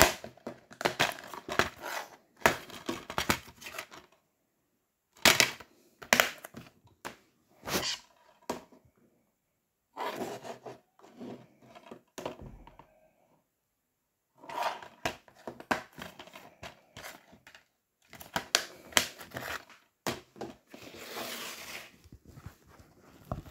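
Plastic DVD cases being handled and set down on one another on a wooden table: bursts of clicking and clattering with short pauses between, and a longer scrape near the end.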